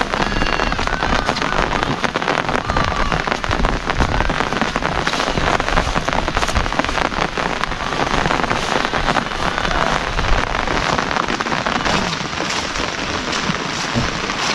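Steady heavy rain, the dense ticks of drops striking close by over an even hiss.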